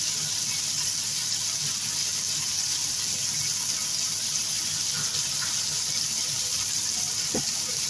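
Chicken pieces and onions sautéing in oil in a frying pan, giving a steady sizzling hiss.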